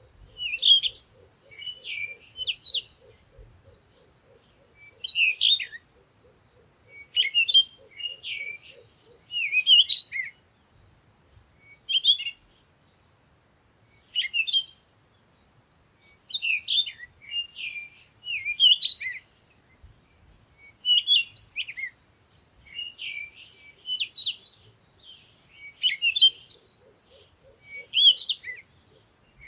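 Morning birdsong: songbirds giving short, quick chirping phrases every second or two. Beneath them a faint, low, fast-pulsing sound runs through the first third and returns near the end.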